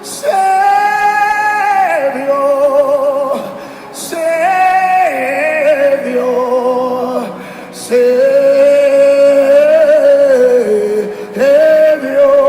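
Worship singing: a single voice sings long held notes with vibrato, in phrases of a few seconds each with short pauses for breath between them.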